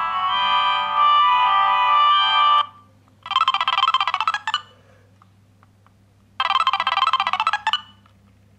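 Siemens C60 mobile phone playing its ringtones through its small loudspeaker. A melodic tune cuts off about two and a half seconds in, then a short, rapidly trilling ring phrase plays twice, about three seconds apart, with silent gaps between.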